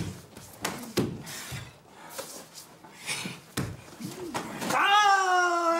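Karate sparring on a wooden floor: bare feet slapping and shuffling, with sharp knocks of blocks and short breaths. About four seconds in, a loud, drawn-out kiai shout starts and is held on one pitch.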